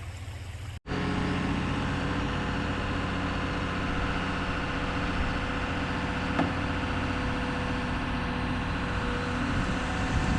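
An engine running steadily at an even speed, starting abruptly about a second in.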